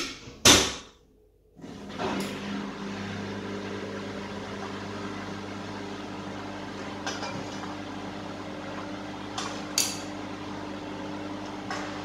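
Candy Smart washing machine starting a spin programme: a loud clunk near the start, then from about a second and a half in a steady electric hum as the machine runs, with a few light clicks.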